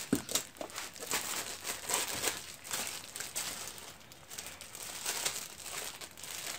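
Clear plastic wrapping on cloth buffing wheels crinkling and crackling in irregular bursts as it is handled and cut open, with a sharp click just after the start.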